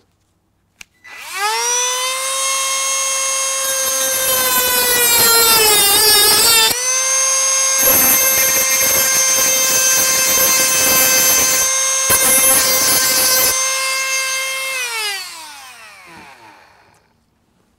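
A high-speed rotary tool with a cut-off wheel spins up to a steady high whine. Its pitch sags under load as the wheel grinds a small part, and more grinding follows. The motor then winds down to a stop.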